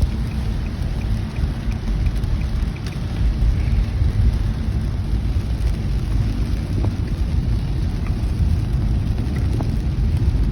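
Steady low rumble and hiss of a car driving on a rain-wet freeway, with rain and tyre noise and a few faint ticks.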